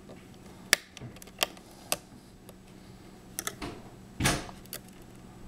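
Small screws being worked out of the laptop screen's corners with a screwdriver: a few sharp separate clicks and taps of metal on metal and plastic, with a louder short scrape a little past four seconds in.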